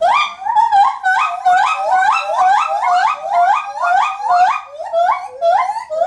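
White-handed gibbon calling: a loud, fast run of short whooping notes, each sweeping sharply upward in pitch, about three a second, thinning out near the end.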